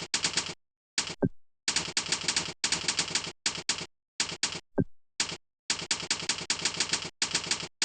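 Rapid typing on a keyboard: quick runs of key clicks in bursts, with brief silent pauses between them. A short falling tone sounds twice, about a second in and near five seconds in.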